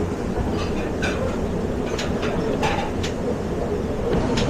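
Busy commercial kitchen noise: a steady rumble with scattered clinks and clatter of pans and utensils.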